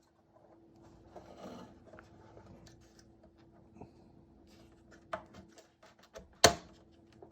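Plastic parts of a car radio unit being handled and fitted back together: light rubbing and scattered small ticks, a click about five seconds in, then a sharp snap about six and a half seconds in as a piece clicks into place.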